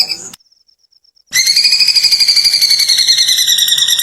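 A bird's rapid, giggling trill, the call likened to a kuntilanak's cackle. It breaks off briefly near the start, then resumes, falling slowly in pitch.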